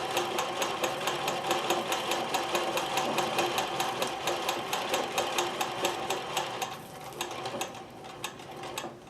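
Consew sewing machine stitching through felt with heavy topstitching thread, a steady run of rapid, even needle strokes over the motor's hum. It eases off a little about seven seconds in.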